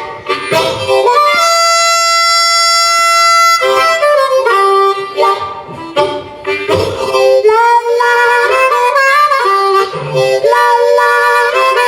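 Solo blues harmonica playing an instrumental break. About a second and a half in, one long note is held for about two seconds. Choppy phrases of shifting, bent notes follow, and near the end quick warbling runs.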